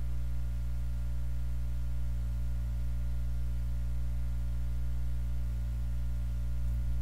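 Steady low electrical hum with faint hiss, unchanging throughout.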